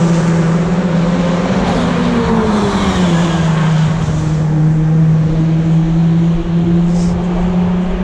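British Touring Car Championship race cars, 2-litre turbocharged four-cylinder engines, running at speed down the circuit. The engine note drops in pitch about two to three seconds in as a car goes by, then holds steady.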